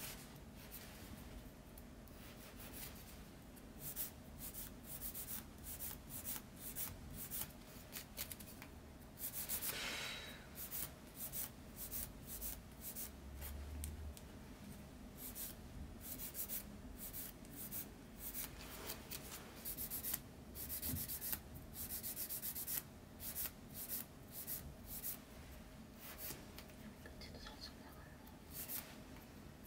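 Repeated short scraping and filing strokes against a fingernail as gel polish and the nail surface are worked, with a faint steady hum underneath.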